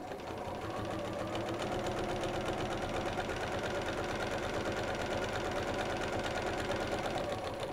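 Janome Memory Craft 6600 computerised sewing machine stitching a straight seam through layered cotton fabric. It speeds up over the first second, runs at a steady, fast stitching pace, and stops near the end.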